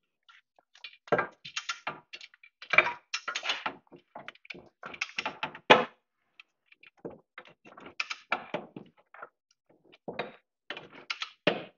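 Hand tools clinking and knocking on the front suspension as a wrench is worked on the lower ball joint pinch bolt: a string of short metallic clicks and knocks at irregular intervals.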